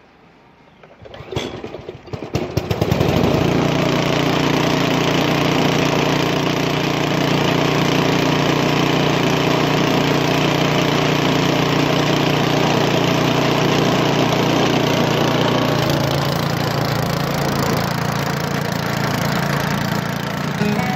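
Toro 521 snowblower's small engine running steadily as it throws snow, coming up over the first few seconds.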